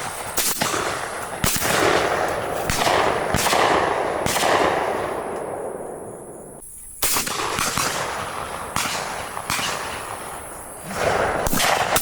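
Shotguns firing in a rapid, uneven volley from several hunters, around a dozen shots, each rolling off in a long echo, with a short lull just past the middle.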